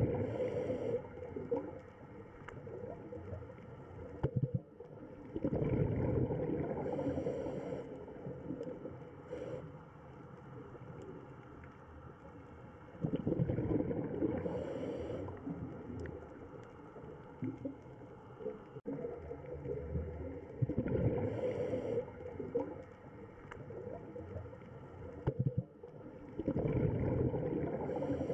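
Underwater sound of bubbling, gurgling water. It swells and fades in a slow regular cycle about every seven seconds, with short hisses among the swells.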